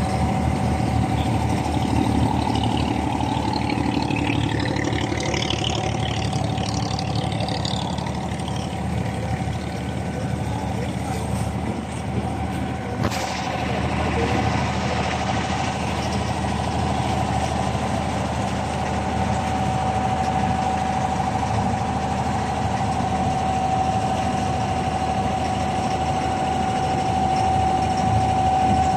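Diesel engine of an abra, a wooden Dubai Creek water taxi, heard on board, running steadily under way, with a constant whine over it.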